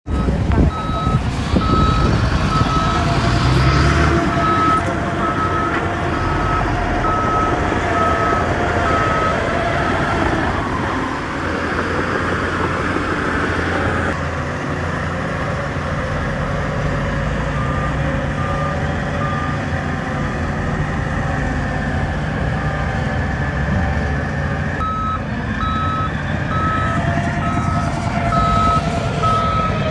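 Heavy construction machine's reversing alarm beeping at about one and a half beeps a second over its diesel engine running. The beeping stops after about ten seconds, comes back briefly, then resumes near the end.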